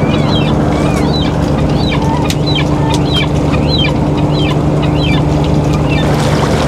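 Gulls calling in quick, repeated short squawks, about two or three a second, that die away about six seconds in. Beneath them a fishing boat's engine runs with a steady hum.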